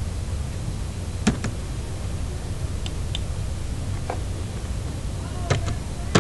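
Computer keyboard keys and mouse clicks tapping out a number, about seven short clicks, several in quick pairs, over a steady low background hum.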